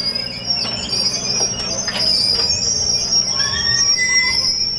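Amphibious mini excavator crawling down a bank on its steel pontoon tracks: a steady high-pitched metal squeal over the running engine, with a few knocks from the tracks and bucket. A second, lower squeal joins after about three seconds.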